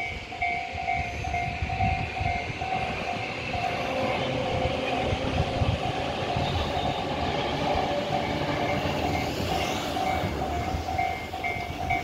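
Japanese level crossing's electronic warning bell ringing steadily, about two to three dings a second, as a train passes. The train's running noise swells through the middle, with a brief high whine near the end.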